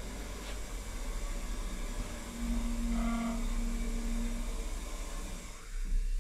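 Steady low machine hum and hiss, with a brief flat tone held for about two seconds midway.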